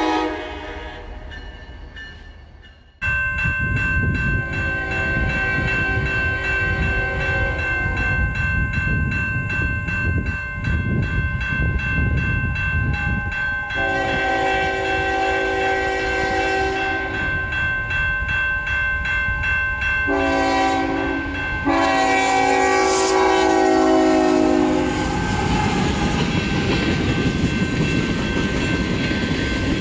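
Freight train blowing its horn for a grade crossing: two long blasts, a short one, then a long one. Under the horn the crossing signal's bell rings steadily, with the train's low rumble along the rails throughout.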